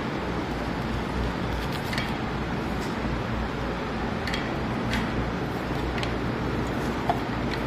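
Steady background hum and hiss, with faint light clicks from hands handling wires at a light fitting's connector.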